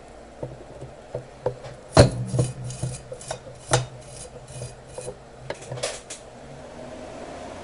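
Small metal hand tools clicking, tapping and scraping against a hard surface in an irregular series of about a dozen short sounds, the loudest a sharp knock about two seconds in.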